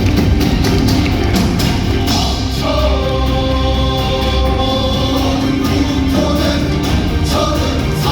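Live stage-musical music with the ensemble singing together over a steady beat; in the middle several voices hold long notes.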